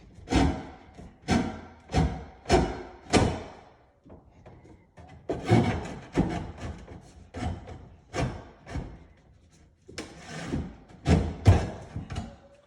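Irwin finish saw cutting through a wooden cabinet stile by hand: repeated rasping strokes, roughly one or two a second, with a short pause about four seconds in before the sawing picks up again.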